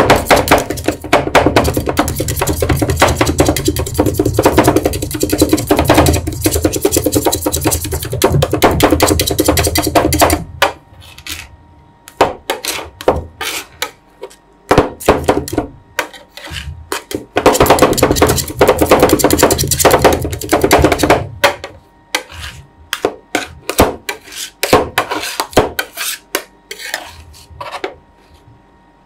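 Two metal spatulas chopping rapidly on the frozen steel plate of a roll ice cream machine, clacking against the metal as they chop raspberry chocolate into the ice cream base. There are two long spells of fast chopping, the first about ten seconds long and the second starting a little after halfway. Between them and after, slower scrapes and separate taps come as the mix is gathered up.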